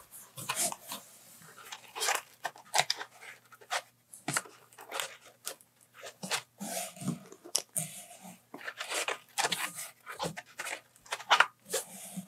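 Plastic bags and foam packing rustling and crinkling in short, irregular bursts as hands rummage through a cardboard box.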